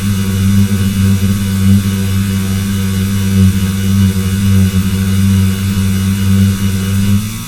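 Loud, steady electrical buzz: a low hum with its overtones under a hiss, which drops away just before the end.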